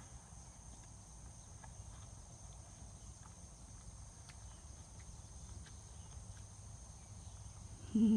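Faint steady high-pitched insect chorus with scattered soft clicks, and a brief voice near the end.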